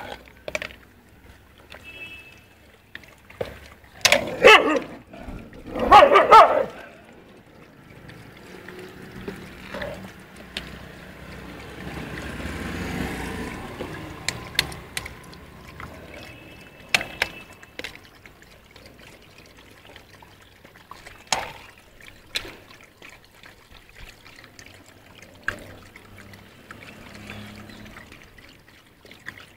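Stray dogs lapping and licking chicken broth from a plastic tub, with wet slurping and small clicks of the plastic container throughout. Two short, loud calls from the dogs come about four and six seconds in.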